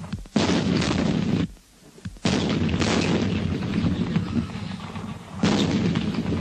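Field howitzer firing: three sudden loud blasts, about a third of a second, two and a quarter seconds and five and a half seconds in, each trailing into a long rumble.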